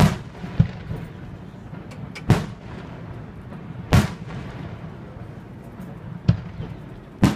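Aerial fireworks shells bursting: about six sharp bangs at uneven intervals, the loudest about four seconds in and just before the end.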